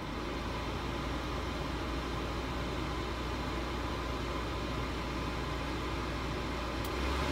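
1985 Volvo 240's dashboard blower fan blowing air through the vents: a steady rush of air with a low hum. Near the end the fan is switched up a setting and gets louder, the hum rising in pitch.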